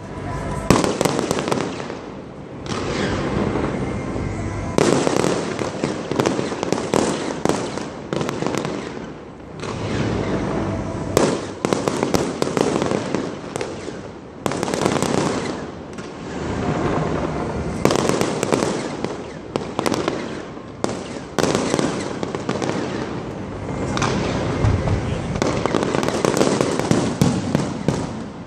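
Fireworks display: shells bursting overhead with dense crackling and sharp bangs, in swells that build and die away every few seconds.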